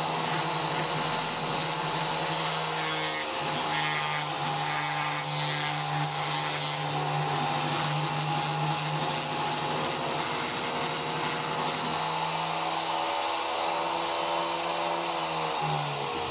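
A small electric power-tool motor running at a steady speed, with a brief dip about three seconds in. Near the end its pitch falls as it slows down.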